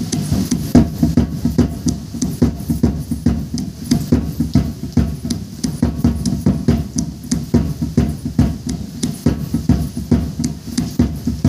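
Drum beaten in a steady, even rhythm of about three to four strokes a second, accompanying a traditional Rongmei dance.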